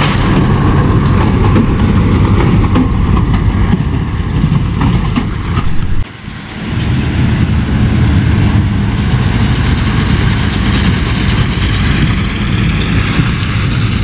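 New Holland tractor pulling a New Holland big square baler across stubble: steady, loud running of the engine and baler machinery with a rough, rattling texture. The sound dips briefly about six seconds in, then resumes.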